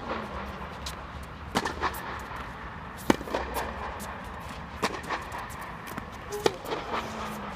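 Tennis rally: the ball is struck by rackets with a sharp pop about every one and a half seconds, with fainter knocks between the hits.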